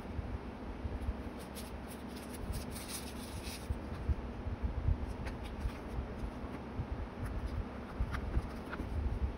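Paper rustling and rubbing as hands handle the pages of a paper journal, with a busier run of rustling about two seconds in. Light scattered taps and clicks on the paper follow, the last of them near the end as a small sticker is pressed onto the page.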